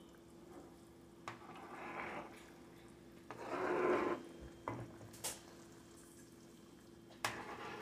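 Butter sauce simmering in a nonstick skillet while a spoon stirs the scallops through it, with a few light clicks of the spoon against the pan over a faint steady hum.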